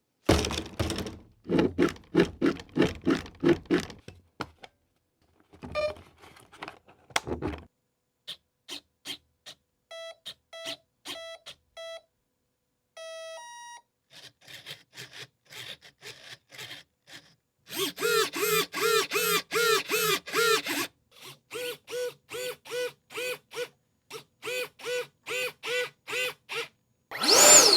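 Electronic beeps and warning tones from an RC J-10 model jet, in changing rhythmic patterns. Short pulses give way to a run of evenly spaced steady beeps, then fast warbling pulses about four or five a second. It ends with a loud swooping tone that rises and then falls.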